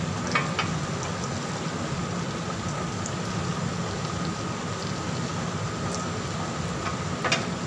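Chicken-heart satay skewers sizzling on a hot grill pan, a steady crackling hiss, with a few sharp clicks as skewers are set down on the pan, two near the start and one near the end.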